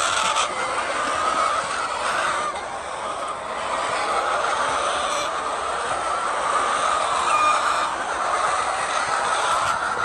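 A large flock of laying hens clucking and calling together: a steady, dense chatter of many overlapping voices.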